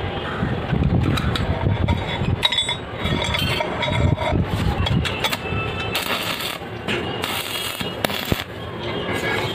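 Light metal clinks as the rebar-and-threaded-rod C clamp is handled. Then, from about six seconds in, a stick-welding arc crackles in short spells.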